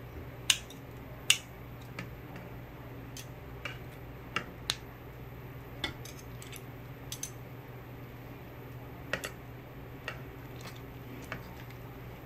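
Metal kitchen scissors and tongs clicking and snipping while cutting braised semi-dried pollock on a ceramic platter: about a dozen sharp clicks at uneven intervals, the loudest two in the first second and a half. A steady low hum runs underneath.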